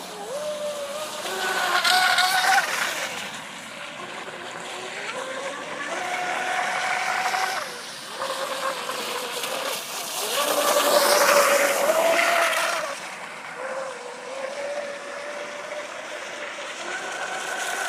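Stiletto speedboat's small, high-revving engine whining as it runs on the water. The pitch rises and falls and it grows louder and fainter several times as the boat passes back and forth.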